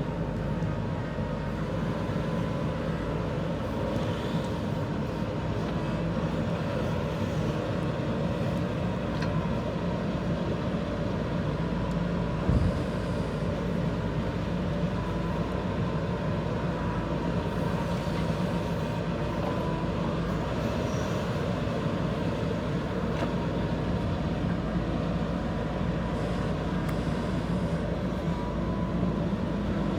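JCB 3DX backhoe loader's diesel engine running steadily while the machine works, with a single knock about twelve seconds in.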